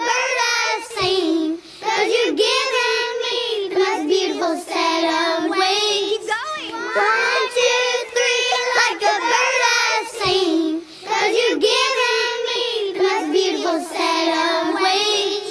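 Background pop song: a high voice sings long held notes with a slight waver, over light backing music.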